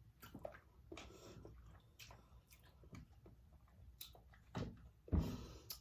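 Wet, saucy chewing and lip-smacking while eating a seafood boil, with scattered short clicks. A louder rustle and thump comes near the end.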